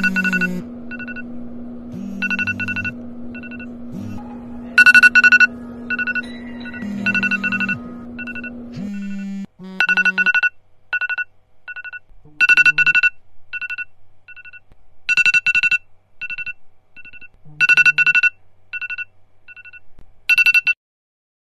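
Mobile phone ringtone: a repeating electronic beeping pattern at one pitch, with a cluster of quick beeps about every two and a half seconds and single beeps between. It cuts off abruptly near the end. A steady low hum runs under the first part and stops suddenly about halfway through.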